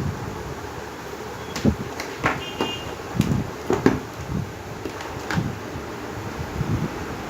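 Scattered clicks and low knocks from a digital multimeter being handled and its selector worked, with a brief high beep a little over two seconds in, over a steady hiss.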